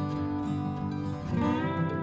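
Background music: an acoustic guitar instrumental, with a new chord coming in about two-thirds of the way through.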